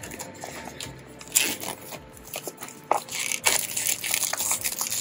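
Clear plastic shrink-wrap being peeled off a small cardboard box and crumpled in the hands: irregular crinkling and crackling, getting louder and denser about a second and a half in.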